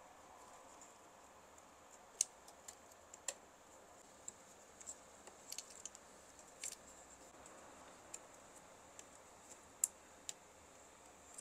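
Scattered small plastic clicks and taps, irregular, as ink cartridges and ink-tube fittings are pressed back into the Epson L3150's print head carriage; the sharpest clicks come about two seconds in and near the end.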